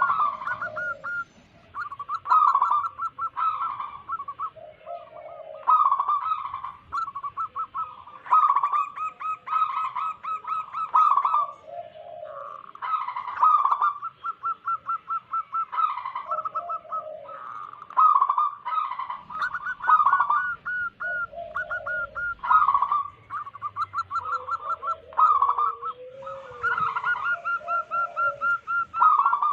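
Zebra dove (perkutut) cooing: phrases of rapid, staccato notes repeated every couple of seconds, with lower coos between them.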